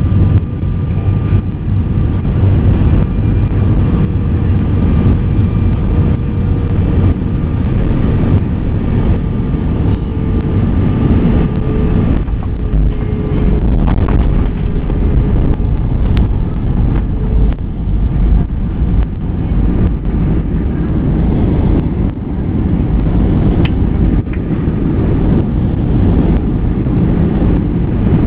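Airbus A320 landing, heard from inside the cabin: a loud, steady rush of engine and airflow noise as the jet touches down and rolls out along the runway with its ground spoilers raised. A faint steady whine fades out about halfway through.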